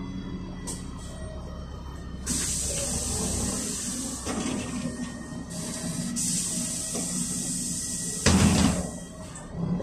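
City bus standing with its engine running, then a long hiss of compressed air from its pneumatic system, broken briefly in the middle, and a loud short blast of air about eight seconds in.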